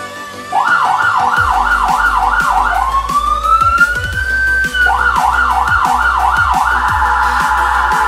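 Electronic siren from a car-mounted loudspeaker, switched through several tones on its multi-button controller. It starts with a fast repeating rise-and-fall, changes about three seconds in to one slow rising tone, returns to the fast rise-and-fall, then turns to a faster trill near the end. Background music with a steady bass beat plays underneath.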